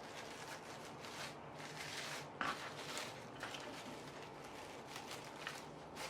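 Faint rustling and crinkling of plastic wrapper, with a few light clicks and taps, as raw chicken longganisa is rolled up in it by hand.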